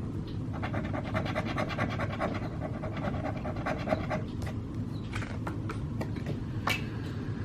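Scratch-off lottery ticket being scratched: a rapid, continuous rasping of the coating being scraped off, with a few sharp clicks and taps in the second half.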